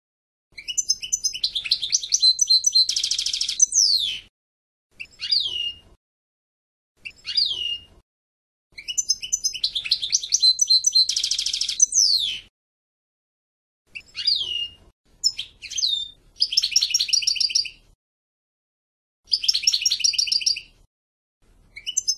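European goldfinch singing: phrases of rapid, high twittering with sharp downward-sliding notes and dense buzzy trills, broken by short silent gaps. The later phrases are mostly the buzzy rattling trills.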